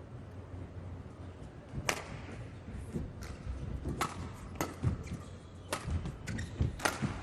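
Badminton rally: rackets striking the shuttlecock in a series of sharp cracks, roughly one every half second to a second, over the steady hum of a sports hall.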